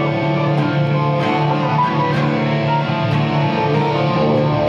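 An electric guitar and an acoustic guitar playing together: sustained chords, strummed about once a second.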